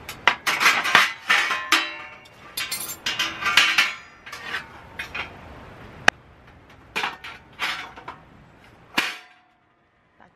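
Stainless steel one-burner stand being handled, its wire pot supports folded and the stand set into an aluminium camp table: a quick run of metal clinks and rattles with short ringing, then a few separate knocks. It cuts off about nine seconds in.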